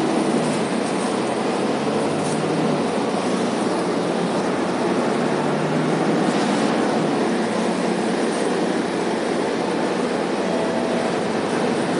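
Volvo B9TL double-decker bus running, heard from inside its lower-deck cabin: a steady mix of its rear-mounted six-cylinder diesel engine and road noise, with a faint low hum through the first half.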